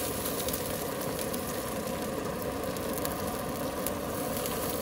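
Steady roaring hiss of a lit cooking stove under a wok, with oil frying in the wok.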